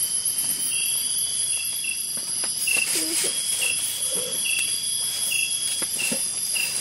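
Chorus of tropical forest night insects: a steady high-pitched trill and hiss, with a short chirp repeating about once a second.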